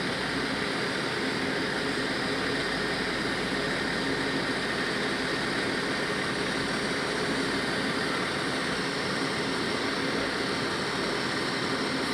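Fire truck's diesel engine idling with a steady, even rumble.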